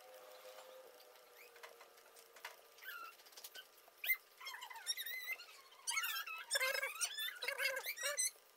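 Short, high-pitched warbling squeaks and chirps of a small animal, sparse at first and coming thick and fast from about three seconds in.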